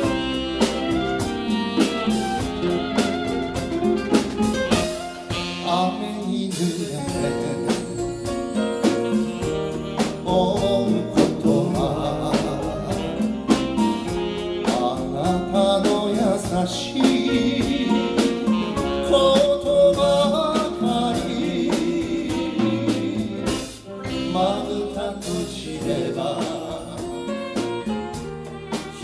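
Live band playing a Japanese pop ballad, with piano and violin, and a man singing into the microphone; the singing comes in about ten seconds in, after an instrumental passage.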